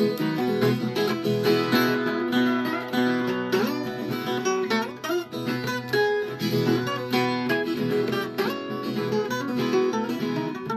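Viola caipira, the Brazilian ten-string folk guitar, playing an instrumental passage of quickly plucked notes and strums between sung verses.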